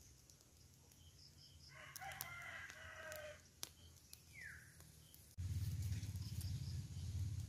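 A rooster crows once, a single call lasting about a second and a half, followed by a short falling bird chirp. Near the end a steady low rumble starts suddenly and becomes the loudest sound.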